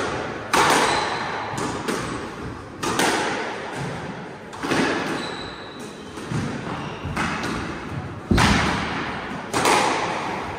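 Squash rally: the ball cracks off the rackets and walls about eight times, roughly once every second or so, and each hit rings on in the enclosed court.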